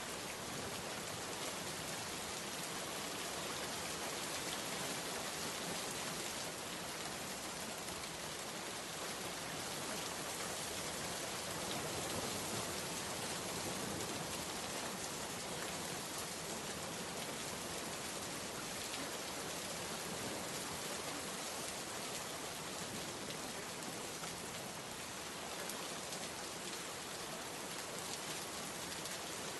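Steady rain falling on a surface, a dense even hiss of drops with no let-up.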